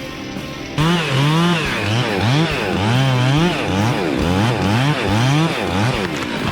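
Chainsaw engine running and being revved up and down repeatedly, its pitch rising and falling about twice a second as the throttle is worked. The sound jumps louder about a second in.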